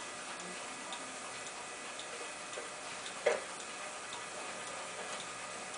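Faint, steady ticking, about two ticks a second, over a background hiss, with one short, louder knock about three seconds in.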